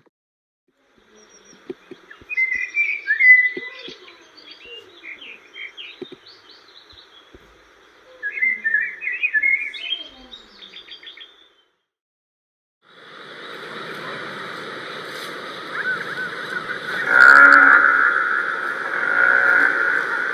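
Birds chirping in short bursts, then, after a brief break, steady outdoor noise with a bison bellowing: a long, deep call from about two-thirds of the way in that is the loudest sound.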